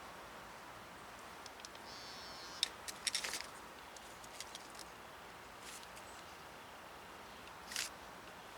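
Faint, mostly quiet background with scattered light clicks and taps, clustered about three seconds in, and a short hiss near the end.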